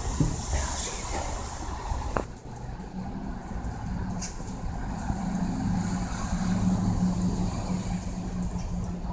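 Steady hiss of rain for the first two seconds, then a sharp click. From about three seconds in, the low steady hum of a motor vehicle engine comes up, loudest a little past the middle.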